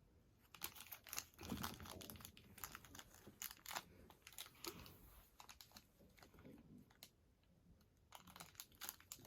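Faint crinkling, rustling and tearing of small toy packaging being handled and opened, in a run of short irregular crackles.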